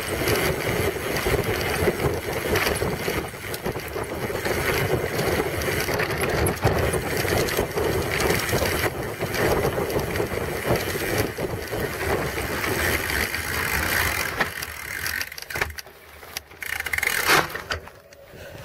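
Mountain bike ridden over rough ground, its knobby tyre rumbling and the bike rattling with dense, rapid clatter. The noise eases off about fifteen seconds in, with one sharp loud clatter shortly before the end.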